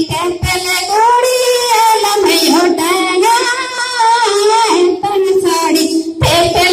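A group of women singing a Karam dance song together in high voices, one long melodic line that bends up and down, with a few low drum strokes near the start and again near the end.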